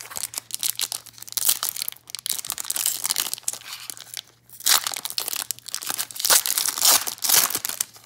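Foil wrapper of a 2005 SPX football card pack crinkling as it is picked up and torn open, then pulled back off the cards, in uneven bursts with a short lull about halfway through.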